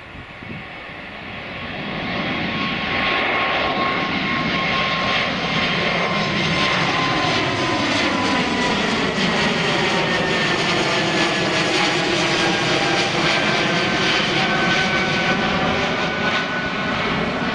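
Airbus A220 jet climbing out at take-off thrust, its Pratt & Whitney geared turbofans making a loud, steady jet rumble. The engine sound swells over the first two seconds, and whining tones in it slowly fall in pitch as the plane moves away.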